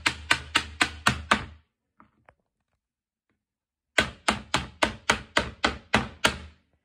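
Metal moulds filled with melted chocolate rapped against a plastic cutting board in quick, even thunks about four a second, settling the chocolate and knocking out air bubbles. The first run stops about a second and a half in; a second run starts about four seconds in and lasts about two and a half seconds.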